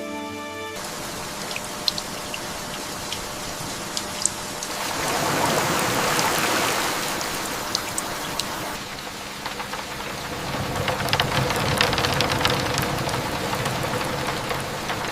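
Steady rain falling, with scattered sharp drops tapping close by; the rain swells louder twice. A few soft music notes end just under a second in.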